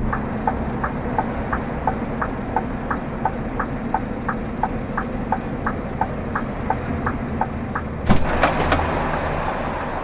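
Truck engine idling under a steady tick-tock of the indicator or hazard-flasher relay, about three clicks a second. About eight seconds in there are a few sharp knocks and a sudden louder rush of noise that slowly fades.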